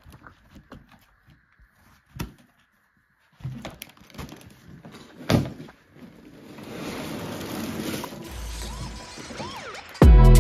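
Large cardboard boxes being handled: scattered light knocks and taps, a sharper knock about five seconds in, then a longer stretch of rustling and scraping. Loud music cuts in right at the end.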